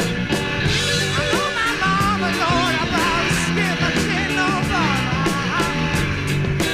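Background rock music with a steady drum beat and a wavering, bending lead line.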